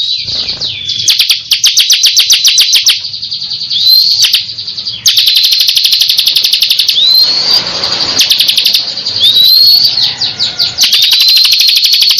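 Bar-winged prinia (ciblek kristal) singing continuously: fast trills of sharp, high repeated notes, broken every second or two by short rising whistled sweeps.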